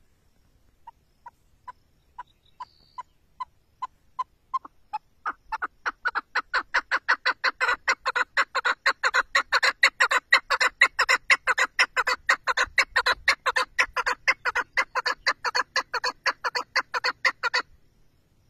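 Chukar partridge calling: single clucking notes at first, about two a second, quickening and growing louder into a fast, steady run of notes about four to five a second, which cuts off suddenly near the end.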